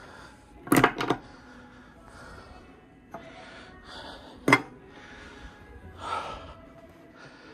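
Metal hand tools clinking and knocking against the steel deck and frame of a bowling pinsetter as they are picked up: a quick double clatter about a second in and one more sharp knock about halfway through, with faint handling rustle between.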